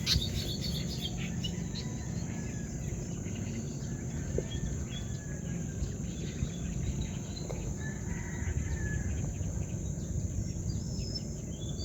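Outdoor ambience: a steady high insect drone with scattered short bird chirps over a low, even background rumble.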